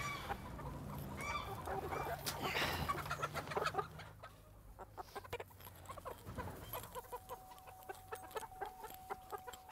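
Hens clucking and squawking as they are chased, caught and loaded into plastic crates, with scattered knocks and clicks from the handling. A faint steady tone comes in near the end.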